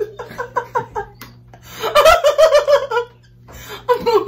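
A woman laughing helplessly in fits: a quick run of short giggles, then a long high-pitched peal of laughter about two seconds in, and another short burst near the end.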